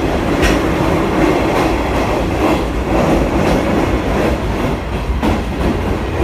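Running noise inside an old-type JNR passenger coach on a locomotive-hauled train: a loud, steady rumble of wheels on rail, with a clack at the rail joints about once a second.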